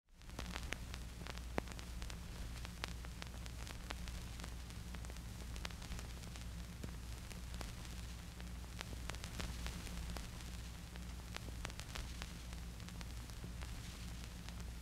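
Steady hiss and low hum with irregular crackles and pops, like the worn soundtrack of an old film, with no music playing.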